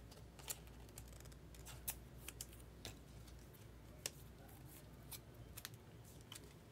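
Faint, scattered clicks and light scrapes of trading cards and their clear plastic holders being handled.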